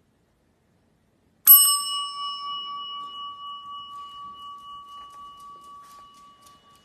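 A chrome desk service bell is struck once about a second and a half in, giving a bright ding that rings on and slowly fades over about five seconds.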